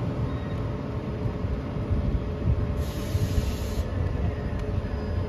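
Class 91 electric locomotive standing at the platform, humming steadily as it waits with its equipment running. About three seconds in comes a hiss lasting about a second, typical of a compressed-air release.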